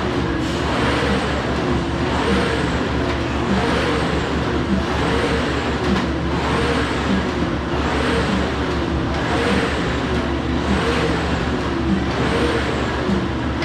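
Air rowing machine's fan flywheel whirring, the whoosh swelling and pitching up with each pull of the handle and easing on the return, about one stroke every one and a half seconds.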